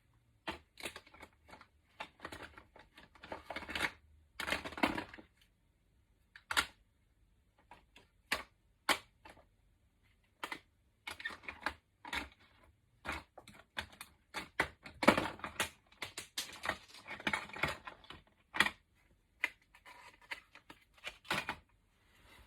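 Small craft items being picked up, sorted and set down on a desk: irregular sharp clicks and taps of plastic, such as ink pads and tools, with short spells of rustling and scraping between them.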